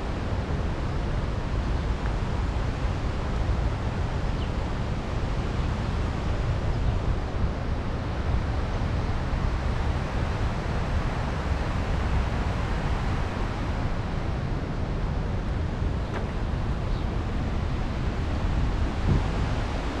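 Steady, even rushing noise with a deep rumble, unchanging throughout.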